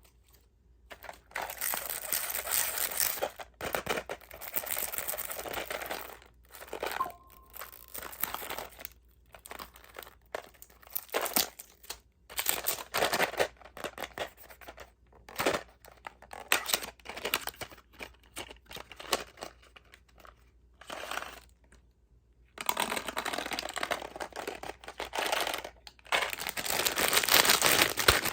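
Candy packaging being crinkled and torn open by hand, in repeated bursts of a second or two with short pauses between. The longest, loudest stretch of crinkling comes near the end.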